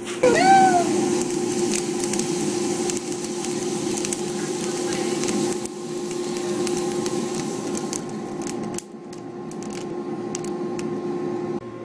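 Coffee roaster's cooling tray running: freshly roasted beans rustle and hiss as the stirring arms turn them, over a steady motor and fan hum. A short pitched squeal rises and falls right at the start.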